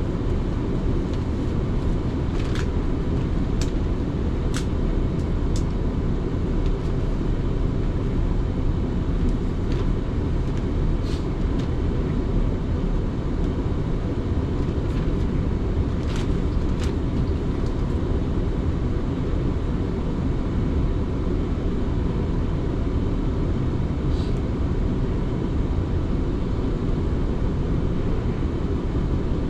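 Third-rail electric passenger train running along the line: a steady low rumble from wheels on rails, with a few short sharp clicks scattered through it.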